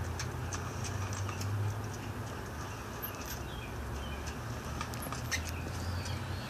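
Raccoon gnawing and pawing at a rope, small scattered clicks and scratches over a steady low hum, with a few faint high chirps.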